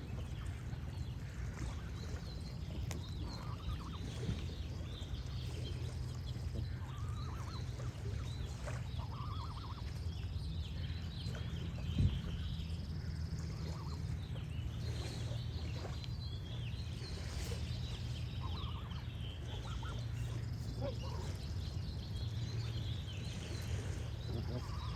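Geese honking now and then, with birds chirping and trilling over a steady low rumble. A single sharp knock comes about halfway through.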